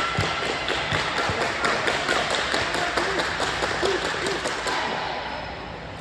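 Spectators clapping, with a few voices calling out, in a gymnasium; the clapping eases off near the end.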